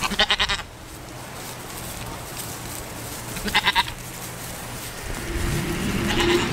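Goat bleating three times in short wavering calls, the last one fainter, near the end.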